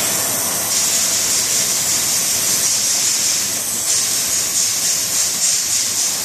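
Gas brazing torch flame hissing steadily on the joint of a copper pipe and a brass adapter, growing brighter less than a second in. The joint is being heated until the copper and brass both glow red, ready for the silver brazing rod.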